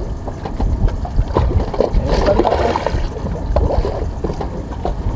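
Uneven low rumble of wind and water noise on a small boat, with faint voices in the background.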